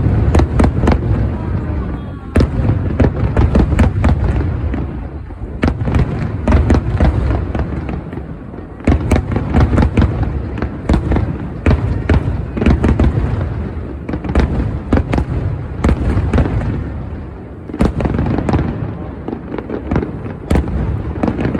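Fireworks display: many shells bursting in quick, overlapping succession, sharp cracks over a continuous low booming rumble, easing briefly a few times before building again.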